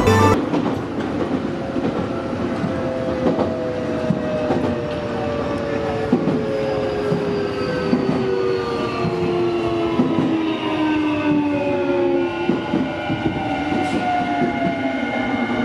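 Electric train running on rails, with its motor whine falling slowly in pitch as it slows and its wheels clicking over rail joints.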